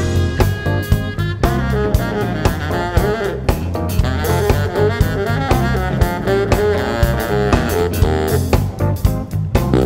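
Live jazz band playing: a saxophone-led horn line over electric bass, Fender Rhodes and a drum kit, with drum hits keeping a steady beat.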